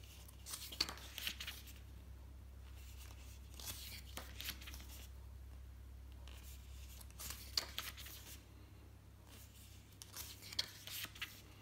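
Glossy paper pages of a thick booklet being turned by hand: four soft rustling page turns, a few seconds apart.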